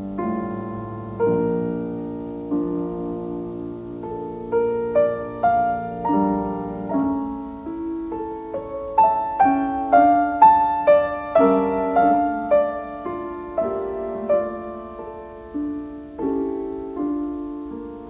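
Background piano music: a melody of single struck notes, each fading away, that climbs higher and grows louder around the middle, then falls back.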